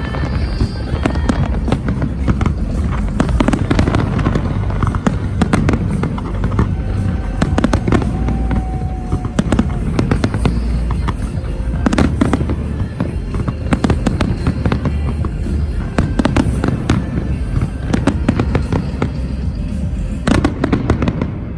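Large fireworks display: a continuous barrage of bangs and crackles over a deep rumble, with a strong bang near the end. Music plays underneath.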